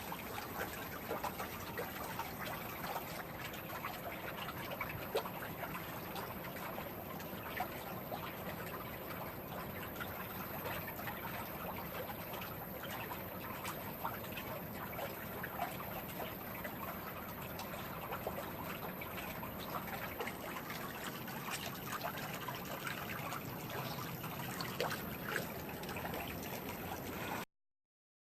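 Swimming pool water trickling and splashing steadily, with many small sharp splashes, then cutting off suddenly near the end.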